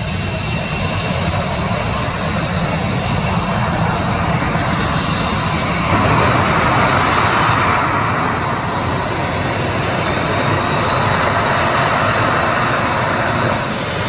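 Boeing 737-800's CFM56-7B jet engines running at low taxi thrust as the airliner rolls slowly along the runway: a steady rushing noise with a thin high whine, growing louder about six seconds in.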